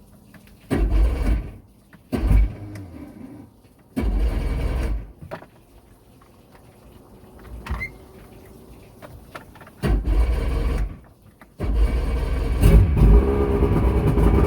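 Mercury Force 120 hp two-stroke outboard being started with the key: the starter turns it over in several short tries of about a second each, with pauses between them. About twelve seconds in the engine catches and keeps running.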